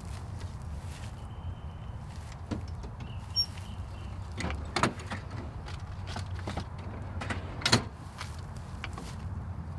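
Gear being handled inside a ute canopy: a few sharp knocks and clunks as things are moved, the loudest near the end, over a steady low rumble.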